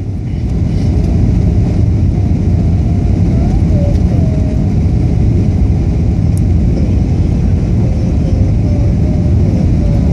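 Steady deep roar of a jet airliner's engines and rushing air, heard from inside the passenger cabin on the approach to landing with the flaps extended.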